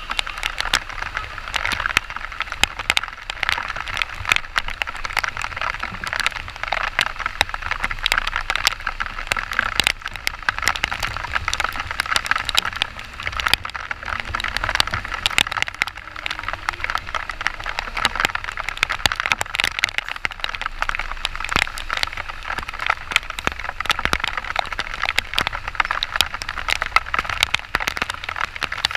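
Heavy rain striking the motorcycle-mounted camera at close range: a dense, irregular crackling patter of drops over a low rumble.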